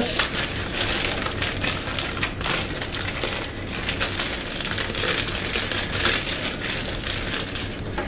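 Plastic bag of large marshmallows crinkling and crackling as it is worked open and emptied into a cooking pot.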